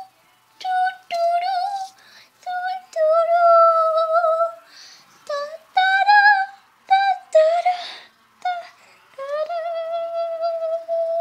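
A child's high voice singing a tune without accompaniment, in short phrases with long held notes, broken by two short breathy noises.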